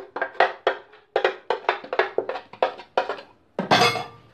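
Metal spoon knocking against the inside of a blender jar in quick repeated strikes, about five a second, as batter is scraped out; a longer, louder clatter comes near the end.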